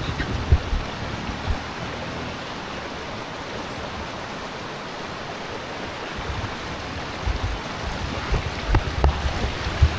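A steady rushing hiss, with irregular low rumbling bumps in the last few seconds, typical of wind and handling noise on a handheld camera's microphone outdoors.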